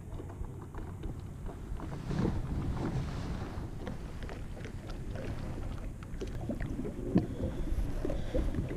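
Outboard motor of a small fishing boat running slowly close by, a steady low hum, under wind rumble on the microphone with a few light knocks.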